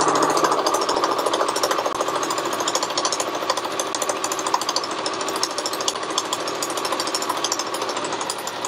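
Electronic domestic sewing machine running steadily at speed, a rapid, even ticking of needle strokes as it stitches a seam through layered fabric.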